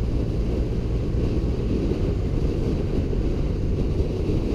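Wind rushing over a motorcycle-mounted camera's microphone at steady riding speed, over the even low drone of a BMW R80's air-cooled flat-twin engine.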